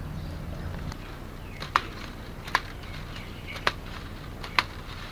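Scissors snipping through thin bamboo strips: four sharp snips roughly a second apart.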